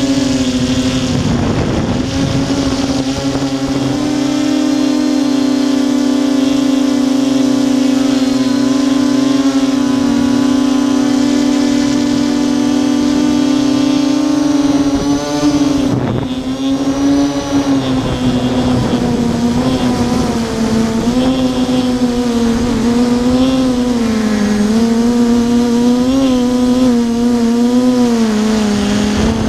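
Armattan Tilt FPV quadcopter's brushless motors and propellers buzzing at a steady pitch, heard through its onboard camera. About halfway through the pitch dips briefly, then wavers up and down with throttle changes.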